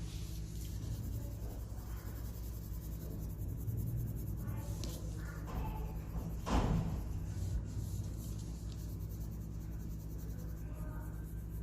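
Colour pens scratching on paper in short colouring strokes, over a steady low hum. A single louder brush or knock comes about six and a half seconds in.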